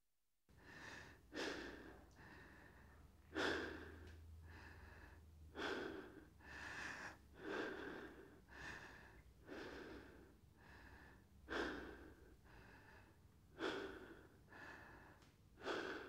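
A person breathing in and out, close up: a series of breaths about one every one to two seconds, each swelling and fading, starting about half a second in.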